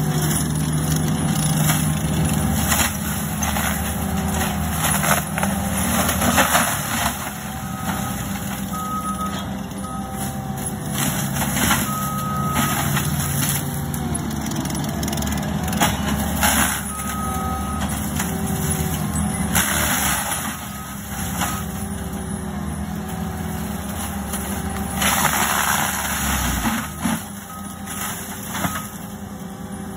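Compact track loader's diesel engine running under load while its forestry mulcher drum shreds brush, rising into louder, harsher surges several times as it bites into material. A backup beeper chirps in short bursts at intervals as the machine reverses.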